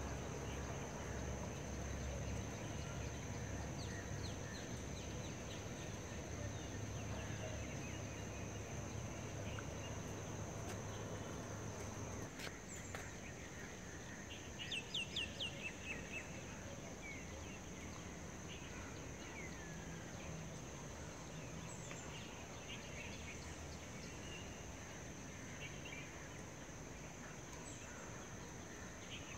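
Outdoor ambience of birds calling and chirping, with a loud run of about six quick calls about halfway through. A steady high whine runs underneath, along with a low rumble that drops away about twelve seconds in.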